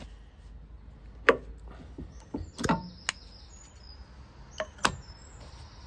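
Detachable tow bar fittings being handled: about five sharp clicks and knocks, the loudest about a second in.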